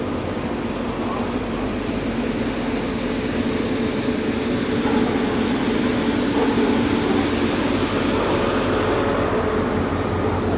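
Steady city street noise from passing traffic, swelling slightly midway.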